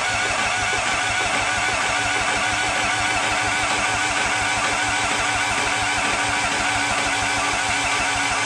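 Starter motor cranking the mini excavator's diesel engine steadily for about nine seconds, cutting off suddenly near the end. The engine does not fire: it has no fuel supply, its lift pump still missing, and the cranking shows that the new heavy battery cables now carry the starter current without melting down.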